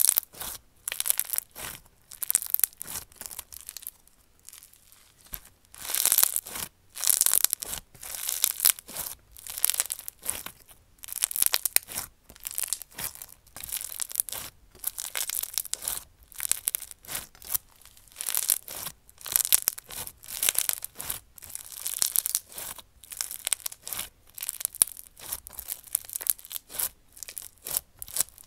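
Crunchy slime being squeezed and pressed by hand, giving crisp crackling and popping noises one after another, about one every second or so.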